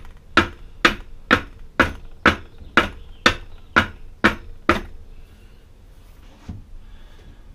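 Wooden board holding a glass Pyrex dish of wet plaster of Paris knocked down on the workbench again and again, about two knocks a second. The knocking stops about two-thirds of the way through. It is done to bring trapped air bubbles up out of the plaster before it sets.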